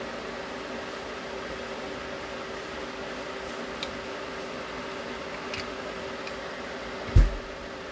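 Steady fan-like hum with a constant low tone, a few faint clicks of small parts being handled, and one loud low thump about seven seconds in, as of something knocking against the bench.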